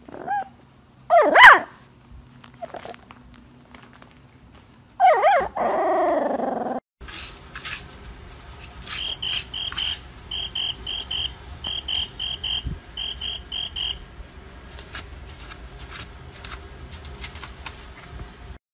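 Young puppy whimpering and yelping in its sleep: a short cry at the start, a louder yelp about a second in, and a long wavering cry falling in pitch around five seconds in. After that comes a low steady background with runs of short, high, evenly spaced beeps in groups of three or four.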